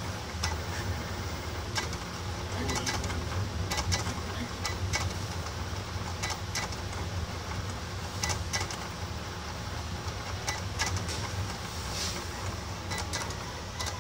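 Cutting plotter converted to a marker pen plotter, drawing: its motors run with a steady low hum while short clicks and ticks come every second or so as the carriage and pen move.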